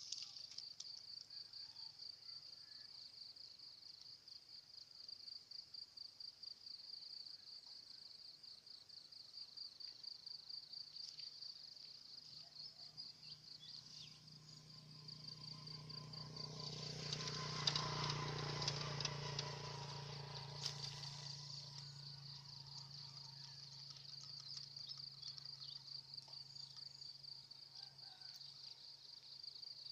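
Insects trilling steadily at a high pitch in rapid, even pulses. About halfway through, a wider rushing sound with a low hum swells up and fades away again over several seconds.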